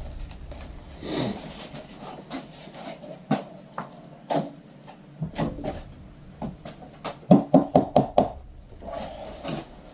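Clicks, knocks and rubbing as a golf iron head and its freshly glued shaft are handled and the excess epoxy is wiped off. About two-thirds of the way through comes a quick run of about six louder knocks.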